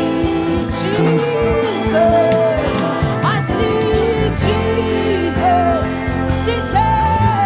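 Live gospel worship music: a melody line gliding up and down over a steady band accompaniment, with repeated cymbal hits.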